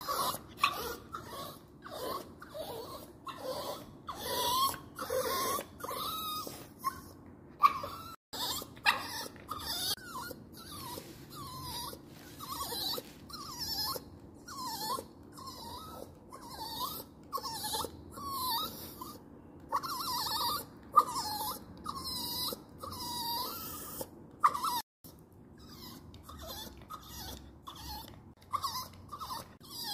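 Yorkshire terrier crying: a long run of short, high whines, about one a second, each bending up and down in pitch.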